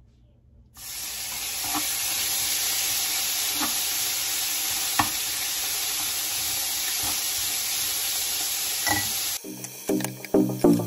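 Beef brisket pieces sizzling in hot olive oil in a nonstick frying pan, a steady hiss that starts abruptly about a second in, with a few light clicks of metal tongs turning the meat. Music comes in near the end.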